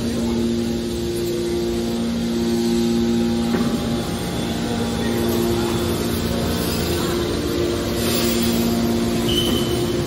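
Hydraulic power unit of a horizontal scrap metal baler running: electric motors and hydraulic pumps give a steady mechanical drone with two pitched hum tones that drop out and come back every second or two.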